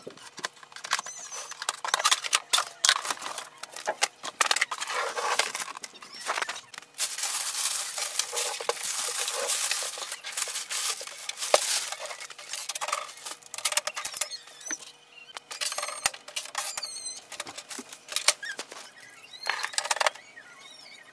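Cardboard box and plastic packing of an inkjet printer being handled and pulled apart: irregular rustling, scraping and knocking, with a few short squeaks.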